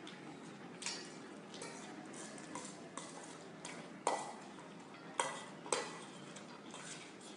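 Dog eating from a stainless steel bowl, with irregular clinks and scrapes of the metal bowl. The loudest are a few sharp clinks past the middle.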